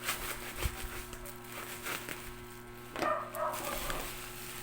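Rustling and clicking of a parcel's plastic packaging being cut open with a kitchen knife, with a low thump under a second in. A dog barks briefly about three seconds in.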